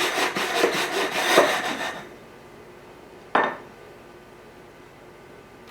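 A round dough cutter is pressed and twisted through pizza dough on a wooden board, making a quick run of rubbing, scraping strokes that lasts about two seconds. A single knock follows about three and a half seconds in.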